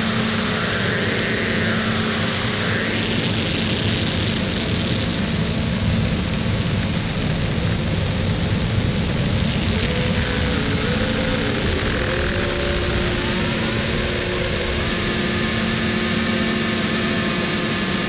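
Harsh noise / power electronics music: a dense, unbroken wall of distorted electronic noise over a steady low drone. Pitched tones waver and glide through it, bending up and down, and more of them pile up in the second half.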